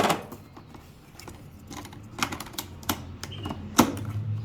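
Hand tools being handled in a toolbox: scattered sharp clicks and clatters of tools knocking together, the loudest right at the start and again nearly four seconds in.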